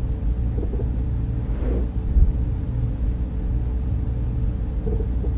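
A steady low rumble with a faint even hum over it.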